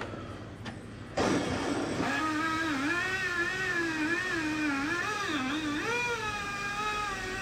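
Electric power tool motor starting about a second in and running with a whine, its pitch dipping and rising as it is worked against the wood.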